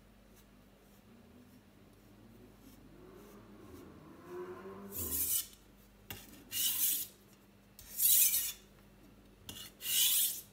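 A carbon-steel gyuto blade scraping across a wet whetstone in sharpening strokes. After a quiet first few seconds, the strokes come about every second and a half, five in all.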